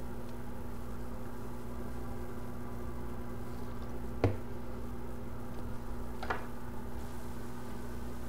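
Steady electrical hum, with a sharp click about four seconds in and a softer one about two seconds later as metal tweezers pick foam off a phone logic board.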